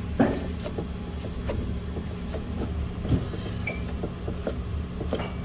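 Large kitchen knife slicing boiled beef on a wooden cutting board: about ten short knocks of the blade reaching the board at an uneven pace, the first the loudest, over a steady low hum.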